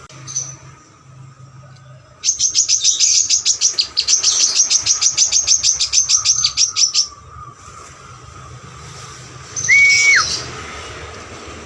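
Sunbird singing: a rapid trill of high, quickly repeated notes for about five seconds, the fast 'nembak' delivery prized by bird keepers, then a single whistled note that holds level and drops sharply near the end.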